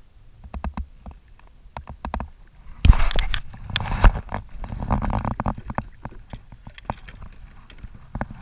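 A hooked small shark splashing and thrashing at the surface beside a plastic fishing kayak, with sudden bursts of splashing about three and five seconds in. Sharp clicks and knocks of gear on the hull come between them.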